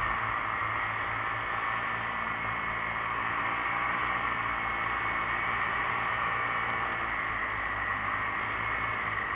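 Steady, muffled drone of a paramotor's engine and propeller mixed with wind rush on the microphone.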